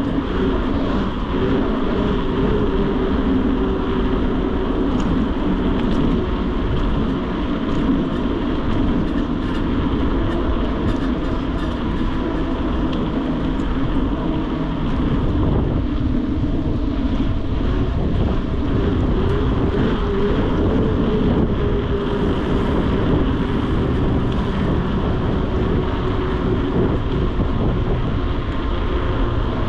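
Steady riding noise from a mountain bike on the road: its tyres humming on the pavement and wind rushing over the camera's microphone. The hum wavers in pitch and dips briefly about halfway through.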